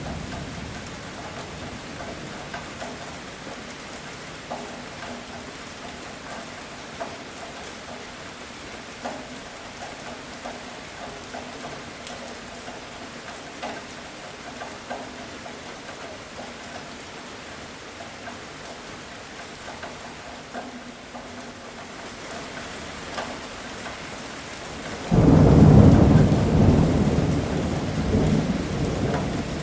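Heavy rain falling steadily. A roll of thunder fades out at the start, and near the end a loud low thunderclap breaks in suddenly and rumbles away slowly.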